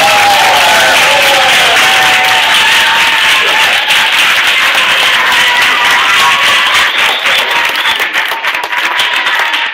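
A children's choir holding the last sung note for about two seconds, then audience applause with some voices calling out, thinning out near the end.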